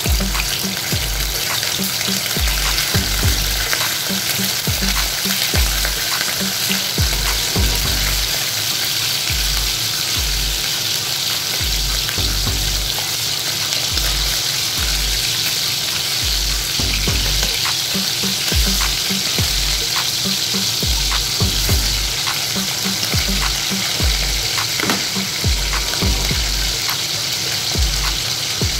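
Pieces of marinated milkfish (daing na bangus) sizzling steadily in hot oil in a frying pan as more pieces are laid in with tongs, with scattered clicks. Under it a low hum keeps switching on and off.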